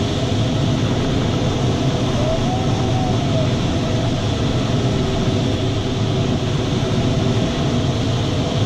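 Steady rush of airflow over a glider's canopy, heard inside the cockpit in flight, with a faint tone that wavers up and down about two seconds in.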